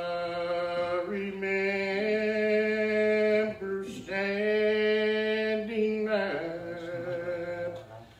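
A single man's voice chanting in long, drawn-out sung notes with slow slides in pitch, in the chanted style of Old Regular Baptist worship. There is a brief break about three and a half seconds in, and another near the end.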